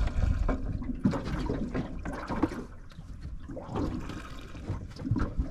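Water slapping and sloshing against the hull of a small aluminium dinghy, coming and going unevenly, loudest in the first second.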